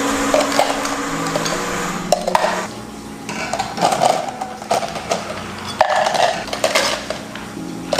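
Ice cubes scooped up and poured from an ice scoop into clear plastic cups, rattling and clattering in several bursts.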